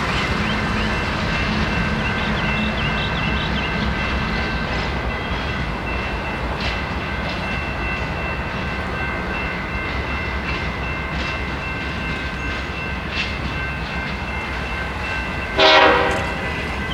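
Diesel locomotive of a CSX train running past with a steady low rumble, and one short, loud horn blast near the end.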